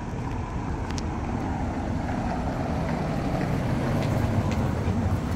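A motor vehicle passing close by: a low engine-and-tyre rumble that swells to its loudest about four seconds in, then starts to ease off.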